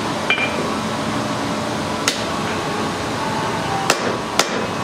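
Blacksmith's hand hammer striking a red-hot steel bar on an anvil: four sparse, sharp blows, the first with a brief metallic ring, over a steady background hum.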